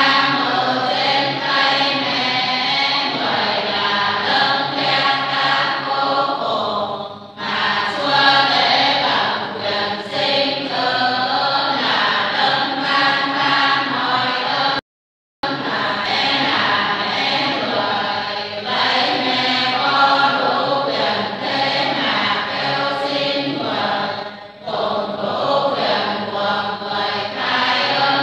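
A group of voices chanting a Vietnamese Lenten Passion meditation (ngắm) in long sung phrases, with a short breath pause twice. The sound cuts out completely for about half a second midway.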